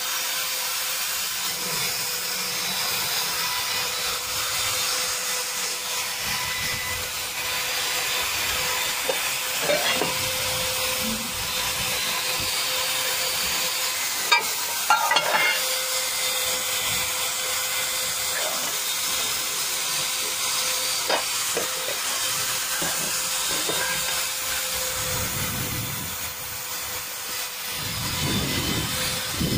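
Handheld die grinder running steadily with a small bit against the Honda CD Dawn's aluminium engine case, polishing it: a hissing whine with a steady tone and a few short louder scrapes about halfway.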